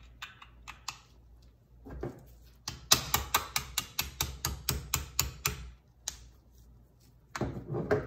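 A small hammer tapping the trigger group pin back into a Winchester SXP Defender shotgun's receiver. There is a quick run of about a dozen light, sharp taps, roughly five a second, over two and a half seconds, after a few faint clicks as the pin is started by hand.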